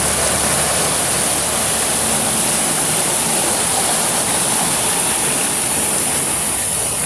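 Waterfall's water rushing in a steady, even noise. Faint background music fades out in the first second or so.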